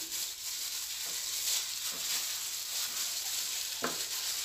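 Clear plastic food-prep gloves rustling and crinkling as hands rub a spice marinade into a raw mackerel, with wet smearing sounds and one sharp knock near the end.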